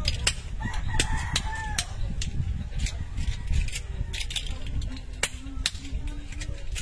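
Scallop shells clicking and clacking as they are pried open with small knives and tossed onto the pile. The sharp clicks come irregularly, several a second at times, over a low rumble.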